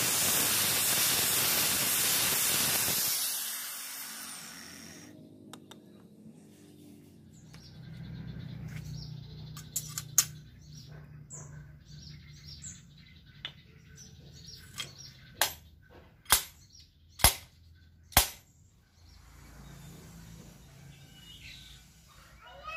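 Electric angle grinder with a sanding disc running against a steel blade, then switched off and spinning down about three to four seconds in. Later come several sharp knocks, the loudest four about a second apart.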